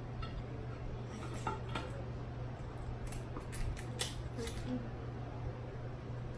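Kitchen scissors snipping through a crab leg shell: a scattering of short, sharp clicks and cracks, the loudest about four seconds in.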